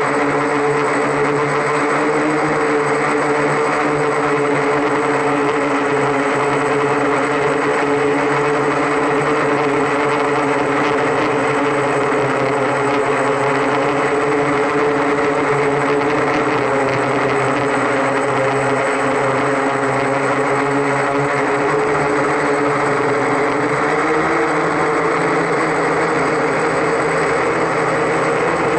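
Octocopter's eight rotors buzzing steadily in flight: a dense hum of several steady tones, with a slight wobble in pitch about 24 seconds in.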